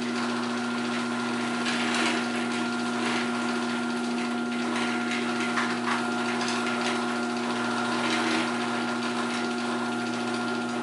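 Chain-drive garage door opener (Chamberlain-made) running on its first test after a new gear and sprocket kit was fitted, the motor driving the chain to carry the disconnected trolley along the rail. A steady motor hum with some light rattling.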